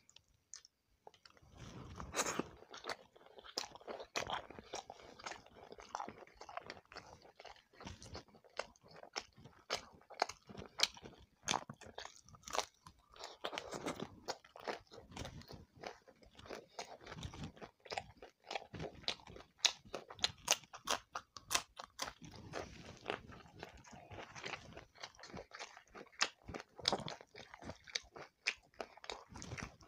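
Close-miked chewing and biting while eating roti with shrimp curry: many quick, irregular mouth clicks and wet crunches. The chewing starts about a second in.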